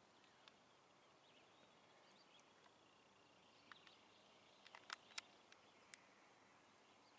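Near silence: faint outdoor ambience, with a handful of small sharp clicks about four to six seconds in, the loudest around five seconds.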